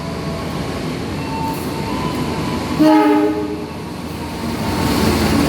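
Indonesian railway train sounding one short, chord-like horn blast about three seconds in, over the rumble of the train running on the track, which grows louder toward the end.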